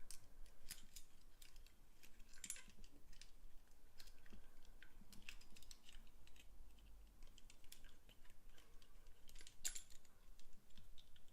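Faint, irregular metallic clicks and scrapes of an overlifter pick and tension tool working the levers inside an old English lever padlock.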